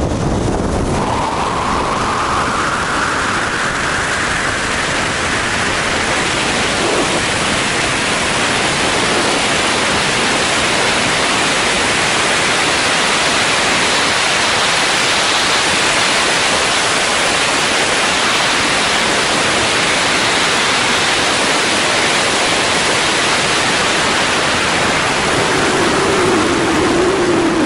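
Wind rushing hard over a helmet camera's microphone during a wingsuit speed run, a loud, steady roar of air. A faint whistle rises in pitch over the first few seconds, and a lower wavering tone comes in near the end.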